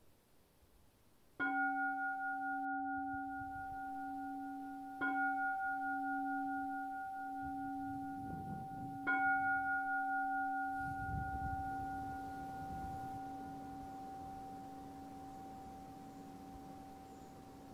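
A bowl-shaped Zen meditation bell struck three times, about four seconds apart. Each strike rings out with a low hum and a clear higher tone that fade slowly and overlap. Three strikes is the traditional signal that opens a period of zazen.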